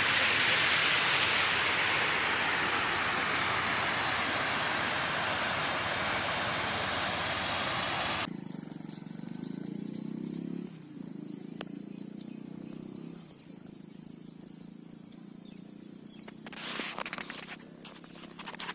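Outdoor riverside ambience. A loud, even rushing noise cuts off abruptly about eight seconds in. It gives way to a quieter background with a low steady hum and a steady high tone, and a few splashes or rustles near the end.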